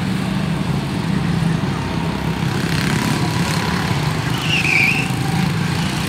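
Several quarter midget race cars' small single-cylinder engines running together in a steady drone. A brief high squeal is heard about four and a half seconds in.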